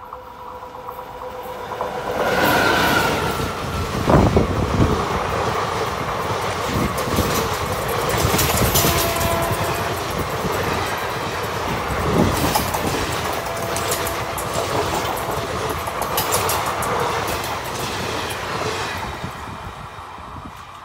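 Passenger express hauled by a WAP-4 electric locomotive passing at speed. The locomotive comes by about two seconds in, then the coaches run past with a steady rumble and wheels clattering over the rail joints, with two louder clanks. It fades near the end as the last coach goes by.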